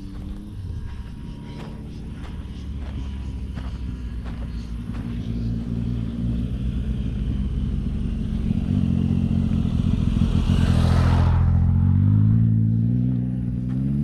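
A motor vehicle's engine approaching, growing steadily louder and passing close by about eleven seconds in with a brief rush of noise. Its pitch then climbs in steps as it pulls away.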